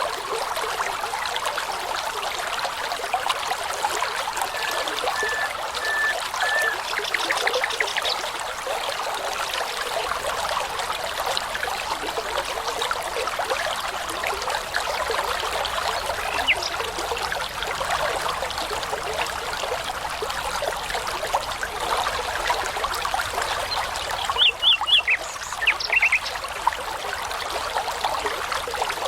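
A babbling brook trickling steadily, with songbirds calling over it: a quick trill about a third of the way in and a louder run of short, high notes near the end.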